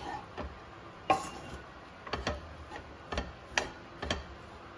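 Spatula knocking and scraping against a kadhai while flattened rice (poha) is tossed and mixed: about six sharp, irregular clicks over a few seconds.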